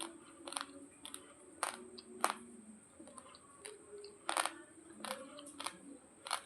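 Raw long-grain basmati rice crunched between the teeth: irregular sharp cracks of the dry grains breaking, with louder crunches about two and four seconds in.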